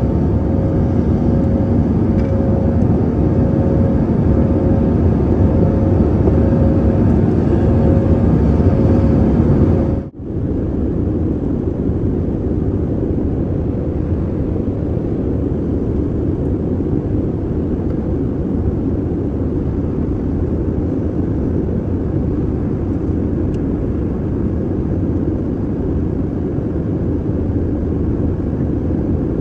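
Jet airliner cabin noise during the climb, an even rushing sound of engines and airflow heard from a window seat. A steady two-note hum runs under it until a sudden break about ten seconds in, after which the rushing continues alone.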